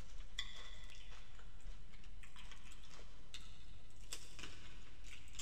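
Close-miked eating sounds of boiled prawns in sauce: scattered wet clicks and short crackles from fingers working the saucy prawns and from the mouth, over a faint low hum.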